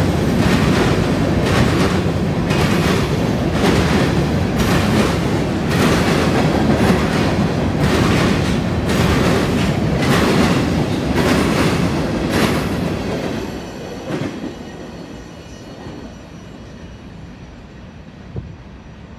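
Covered hopper cars of a CSX freight train rolling past close by: a heavy rumble of steel wheels on rail with a sharp clack about once a second. The sound drops away about two-thirds of the way through as the end of the train passes.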